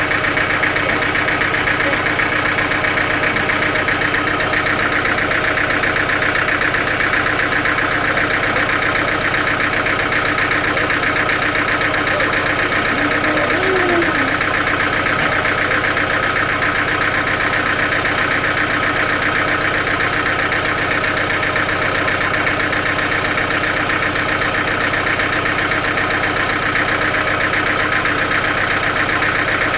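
Sawmill machinery running steadily, a continuous mechanical drone with a fast even pulse and no pauses.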